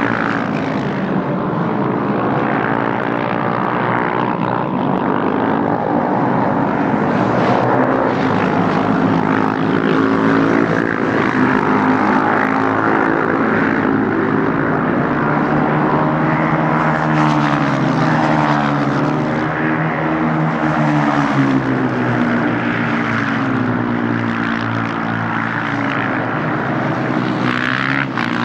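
A pack of KTM 690 Duke single-cylinder race bikes running together, several engines heard at once, their pitch rising and falling as the riders shift gears, brake and accelerate.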